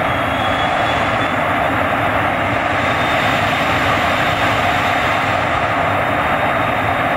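Jet engine of a jet-powered semi truck running steadily while the truck stands still, with fuel flames firing from its exhaust stacks. A faint high whine fades in the first second.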